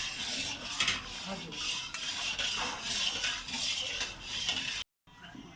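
A metal utensil scraping and stirring in a cooking pot, in repeated strokes. The sound breaks off abruptly near the end.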